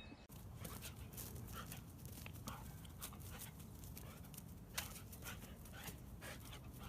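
Faint sounds of a dog, with many light clicks and taps scattered throughout over a low steady background noise.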